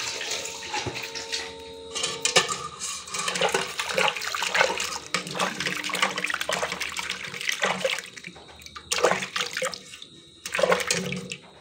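Water splashing and sloshing in a steel bucket as two skewered whole snakehead fish are rubbed and rinsed by hand, in irregular splashes with short pauses.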